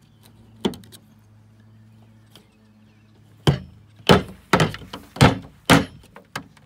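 Sharp knocks on a hollow plastic folding tabletop: one, then a quick run of about eight, roughly two a second. They come from a knife-sharpening steel striking the table as it prods and lifts the writhing cut body of a common water snake.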